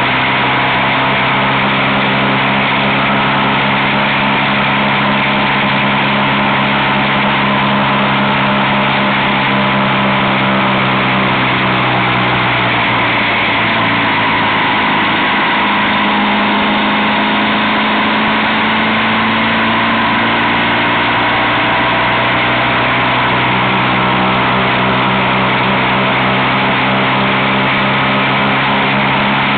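Motorcycle engine running steadily at road speed, heard from on the bike along with wind rush. Its note drops about halfway through and then climbs back.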